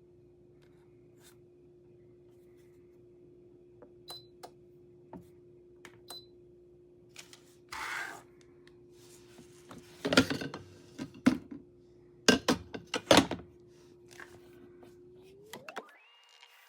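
Clicks, a short scrape and a cluster of loud knocks and clatter of hard objects being handled, over a steady hum. Near the end the hum glides sharply up in pitch and gives way to a hiss.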